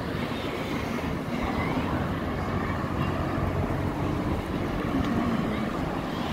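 Outdoor road ambience: an uneven low rumble of wind on the microphone mixed with cars passing on the road.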